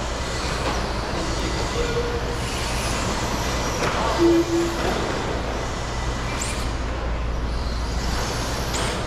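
Steady rushing noise with a low hum under it in the indoor RC track hall, with faint, brief high whines from RC stadium trucks racing on the clay track.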